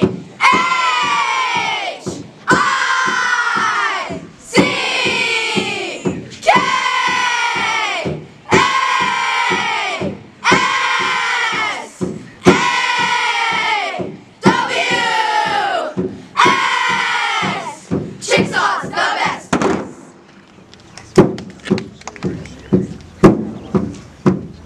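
A group of girls yelling a team chant in unison: nine long shouts, each starting sharply and falling in pitch, about one every two seconds. Near the end comes a quick run of about ten sharp knocks.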